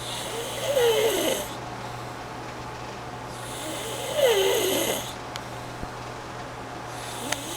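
A man snoring in his sleep: two long snores about four seconds apart, each a wavering tone that falls in pitch with a breathy hiss over it, and a third starting near the end.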